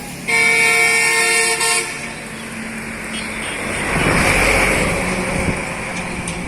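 A vehicle horn blares steadily for about a second and a half near the start, then a motor vehicle passes close by, its noise swelling and fading again, with engine noise underneath.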